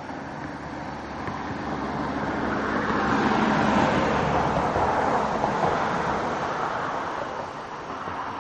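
A vehicle passes by, its noise swelling to a peak about four seconds in and then fading away.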